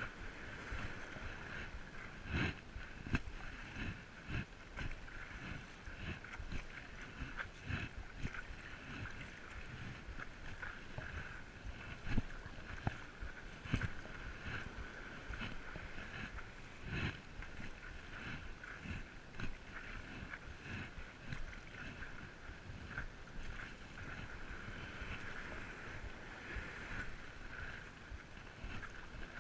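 Stand-up paddleboarding on the sea: water splashing and lapping at the board and paddle, with irregular knocks and splashes from the paddle strokes over a steady rush of water and light wind.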